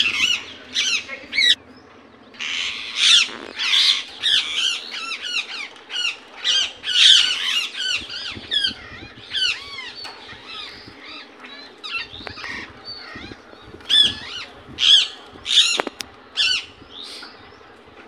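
Indian ringneck parakeet calling: a long run of short, loud, repeated calls, thick in the first half, sparser in the middle, and a bunch of louder calls again near the end.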